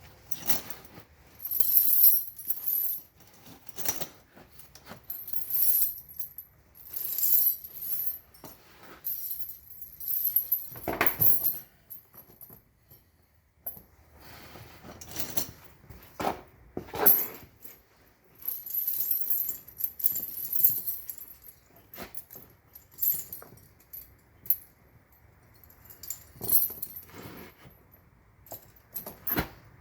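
Steel tire chain clinking and rattling in irregular bursts as it is handled and fitted onto an ATV's rear tire, with short pauses between.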